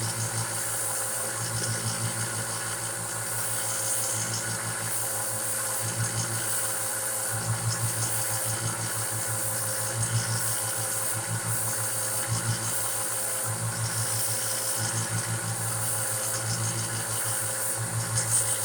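Belt sander running steadily while a knife's peened pins are sanded flush with the bolster, its low hum swelling and fading every second or two.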